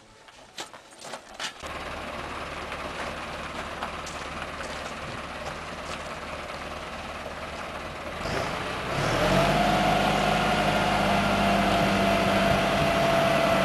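A few knocks, then the engine of a hydraulic boat trailer starts and runs steadily. About eight seconds in it gets louder, with a steady whine, until it stops near the end.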